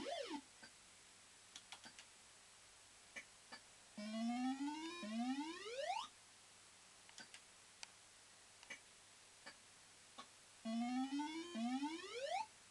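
Barcrest Super Lineup fruit machine playing its electronic sound effects: two rising synthesized sweeps, each about two seconds long, one about 4 seconds in and another near the end, with scattered soft clicks between them.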